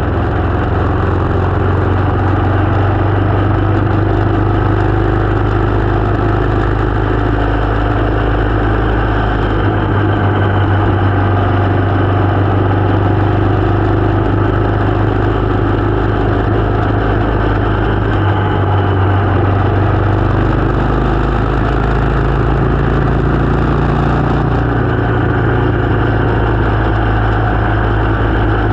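Motorcycle engine running steadily, its pitch shifting slightly a few times.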